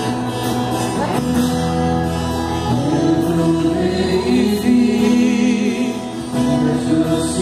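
A small choir rehearsing a gospel song with keyboard accompaniment, singing long held notes over a steady bass line.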